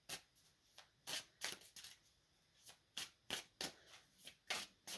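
Tarot cards being shuffled and handled by hand: a faint, irregular series of short card slaps and brushes.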